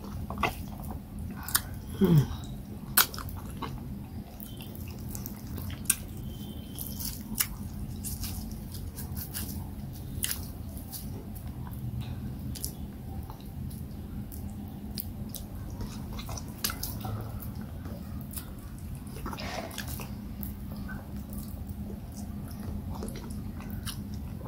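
Close-miked mouth sounds of eating fufu with peanut soup by hand: wet chewing with lip smacks and sharp clicks scattered throughout. The loudest moment is about two seconds in, where a short falling vocal sound comes between the clicks, and a low steady hum runs underneath.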